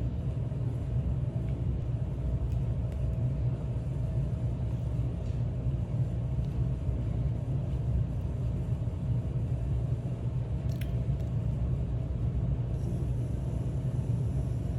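Steady low road rumble inside a moving car's cabin, with a few faint clicks.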